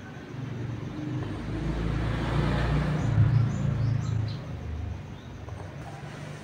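A motor vehicle passing on a nearby road: a low engine hum that swells, is loudest about two to four seconds in, then fades. A few faint high bird chirps sound over it near the middle.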